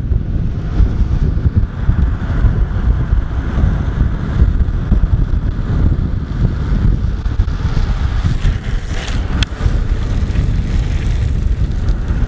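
Heavy wind buffeting the microphone at downhill longboard speed, over the rolling roar of urethane wheels on asphalt. A brief sharp high sound cuts through about nine seconds in.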